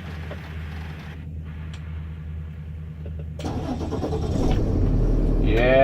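A large truck's engine running at idle, a steady low hum, then growing louder from about three and a half seconds in, with a deeper rumble building toward the end.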